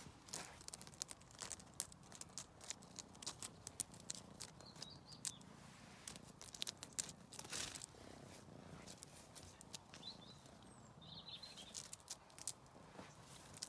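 A cat's claws scratching and scrabbling on tree bark as it climbs the trunk: a faint, irregular run of quick scratches and clicks.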